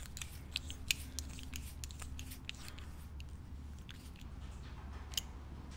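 Faint, irregular clicking of a micrometer-style torque wrench's adjustment handle being rotated to dial in a Newton-metre setting, over a steady low hum.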